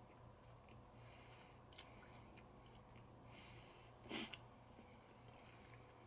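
A person chewing food with the mouth close to the microphone, soft wet mouth noises coming and going, and one sharp click a little over four seconds in. A faint steady electrical hum runs underneath.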